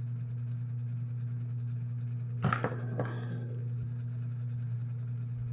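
A few small, sharp metallic clicks about two and a half to three seconds in, from a smartphone's SIM tray and ejector pin being handled, over a steady low hum.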